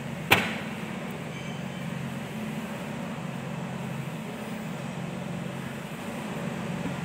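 Steady machine hum with a sharp click about a third of a second in.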